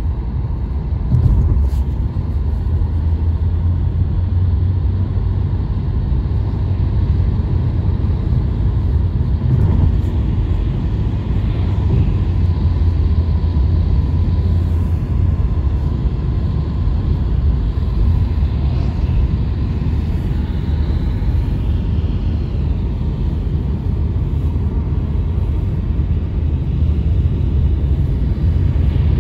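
Steady low rumble of a car driving along a road: tyre, road and engine noise heard from inside the car.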